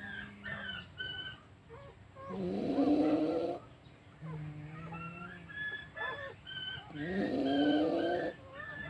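A sleeping puppy snoring: two long snores about four and a half seconds apart, each rising then holding, with thin, high squeaky whistles in between.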